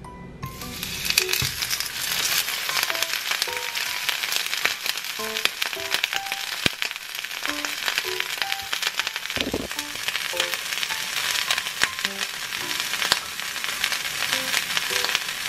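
A raw burger patty sizzling and crackling in hot oil in a nonstick frying pan, with oil spattering. The sizzle starts about half a second in, as the patty goes into the pan.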